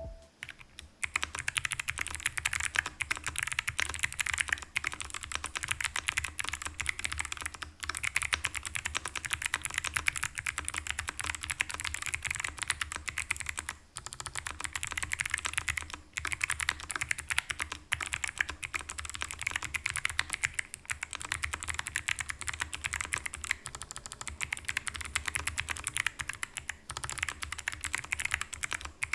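Typing on an Ajazz AC100 mechanical keyboard with clicky Kailh Box White switches in stock, unmodded form: a dense, fast stream of sharp key clicks, broken by a few brief pauses.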